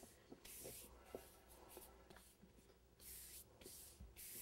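Near silence with a few faint, soft rustles and small clicks.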